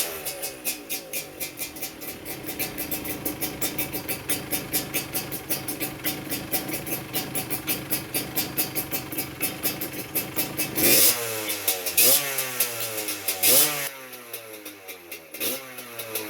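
Yamaha DT175 single-cylinder two-stroke engine, fitted with a Vforce 3 reed valve, idling with an even popping beat just after starting. In the last third the throttle is blipped four times, the engine note rising sharply and falling back each time.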